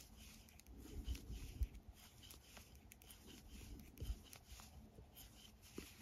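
Faint clicking of metal knitting needles and soft scratching of wool yarn as knit stitches are worked, with a few soft low bumps.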